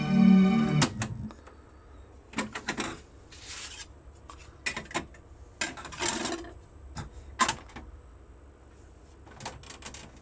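Music from the Philips AZ 2100 boombox's speakers stops abruptly about a second in. Then come scattered sharp plastic clicks and short scrapes from handling the machine: the top-loading CD lid is opened, a disc is set on the spindle, and the function slider is moved.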